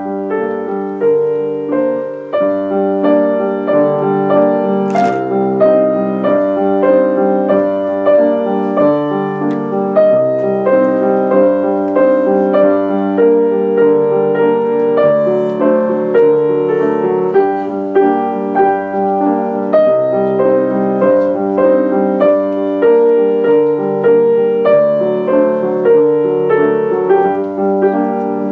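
Piano playing a simple melody over chords, note after note at an even, unhurried pace.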